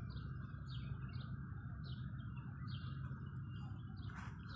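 A small bird chirping: a string of short, high, downward-sliding chirps, about two a second, over a steady low hum.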